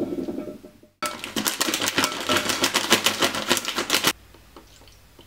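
Large granola clusters poured from a plastic bag into a stoneware bowl: a dense rattle of many rapid clicks lasting about three seconds, which stops abruptly. Just before it, a short duller tumble of blueberries being tipped into the bowl.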